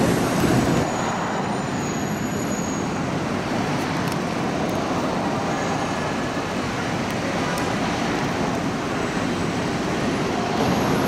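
Steady rushing drone of airliner jet engines at low thrust as a jet taxis at the airport.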